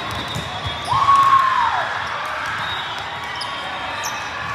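Court sounds of an indoor volleyball match: low thuds of the ball and feet over a background of crowd chatter. About a second in comes one loud sneaker squeak on the gym floor, a squeal that falls in pitch over nearly a second.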